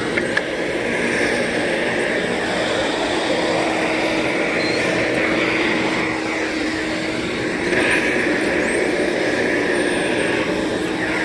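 Vacuum cleaner running steadily on carpeted stairs, its motor giving a constant hum under a loud rushing of air.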